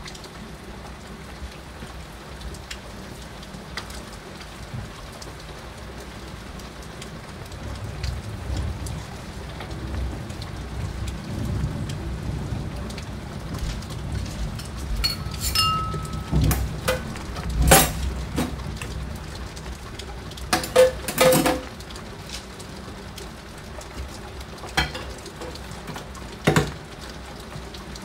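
Heavy rain falling steadily against a window, with a low rumble of thunder that builds from about eight seconds in and dies away near the middle. In the second half come several sharp knocks close by, the loudest sounds here.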